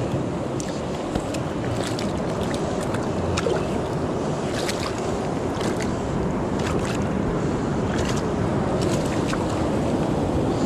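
Surf washing over a rocky shore in a steady rush, with wind buffeting the microphone. Scattered light clicks and rustles from hands handling a freshly caught sea bass and gear sit on top of it.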